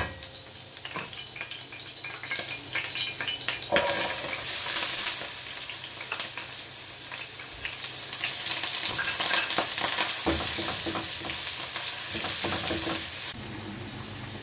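Sliced red onions hitting hot cooking oil in a pan and sizzling loudly, with a spoon stirring and clinking against the pan. The sizzle starts suddenly about four seconds in, after quieter frying with light clinks, and drops away near the end to a softer, steady frying sound.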